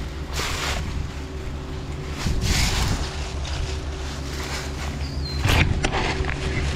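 Wind buffeting the microphone: a steady low rumble that swells in gusts twice. A single sharp click comes about five and a half seconds in.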